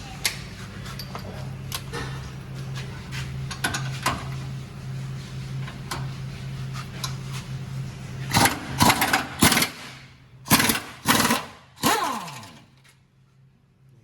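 Light metal tool clicks, then about eight seconds in several short loud bursts of a pneumatic impact wrench undoing bolts, the last one winding down in pitch as it stops.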